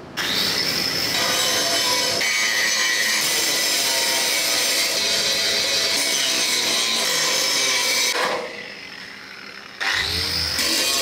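Electric angle grinder starting up and grinding the steel sheet of an ammo-rack lid, a steady, loud, rasping whine. About eight seconds in it drops away, then the grinder spins up again with a rising whine near the end.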